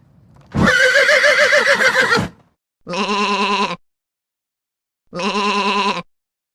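Sheep bleating: one long bleat with a quavering pitch, then two shorter bleats a couple of seconds apart.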